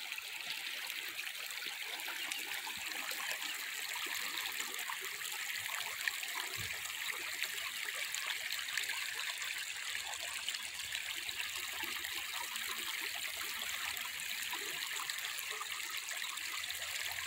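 Delaware River's East Branch flowing over a shallow, rocky riffle: a steady trickling rush of moving water.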